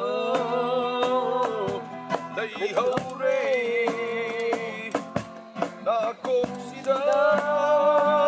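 A man singing a Manipuri song in long, held notes to a strummed acoustic guitar, with a cajón beating time.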